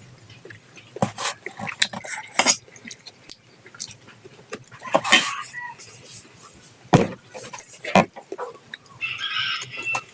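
Close eating sounds of noodles and eggs: scattered smacks, clicks and a slurp, loudest about two thirds of the way through. A chicken clucks in the background near the end.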